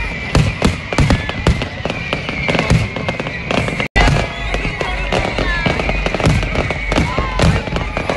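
Fireworks display: a dense run of sharp bangs from bursting shells over continuous crackling, with the sound cutting out for an instant about halfway through.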